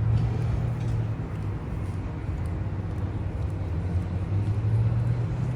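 Disney cruise ship's horn sounding deep, sustained notes that swell and ease in strength.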